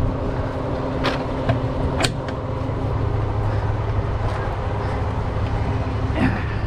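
Wrecker's diesel engine running steadily, a low hum that picks up slightly about two and a half seconds in, with two sharp metallic clicks about one and two seconds in.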